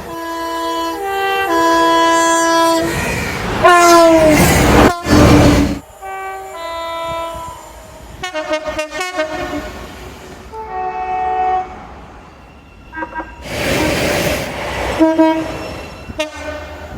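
British train horns sounding one after another in short two-note blasts, each note stepping between a higher and a lower pitch. About four seconds in, one horn falls in pitch as a train passes, and twice the loud rush of a passing train drowns everything out.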